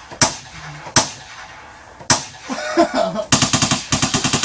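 Gunshot sound effects played back: three separate single shots, then rapid automatic machine-gun fire starting a little past three seconds in.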